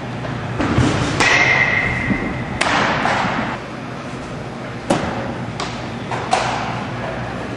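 Baseballs smacking into catchers' leather mitts during pitching practice: a series of sharp smacks spread through several seconds, the loudest about five seconds in.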